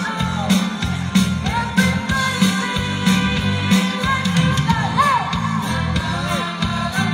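Live rock band playing through PA speakers: a steady drum beat under the band, with a voice singing over it.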